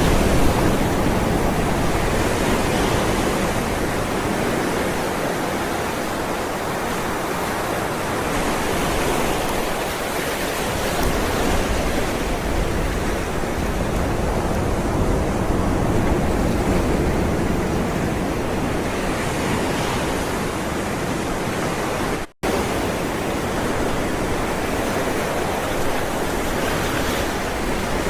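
Ocean waves rolling and washing in a continuous rushing surf, swelling and easing slowly in loudness. The sound cuts out completely for a split second about three quarters of the way through.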